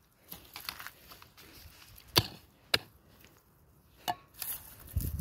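A metal hand digging tool chopping into dry, stony soil: a few sharp strikes about a second apart with scraping and crumbling dirt between them, digging out a metal detector target.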